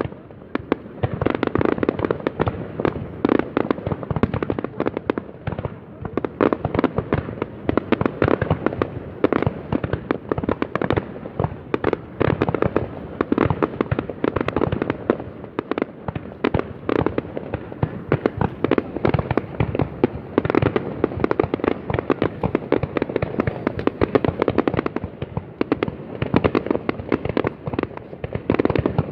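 Fireworks going off in a dense, unbroken barrage: many sharp bangs in rapid, overlapping succession with no pause.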